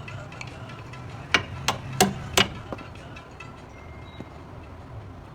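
Hammer blows during car brake and steering repair work: four sharp knocks in quick succession, about a third of a second apart, starting about a second and a half in, over a low steady hum.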